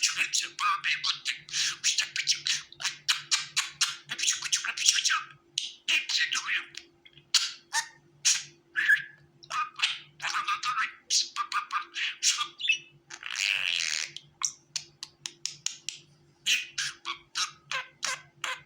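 Budgerigars chattering and warbling: long runs of rapid, high chirps broken by short pauses, over a faint steady low hum.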